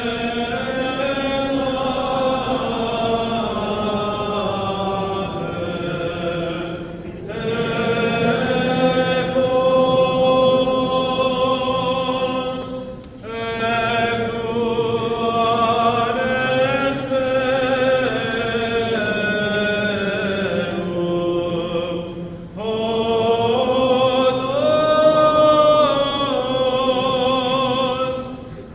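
Greek Orthodox Byzantine chant, several voices singing long held, melismatic phrases that pause briefly about seven, thirteen and twenty-two seconds in.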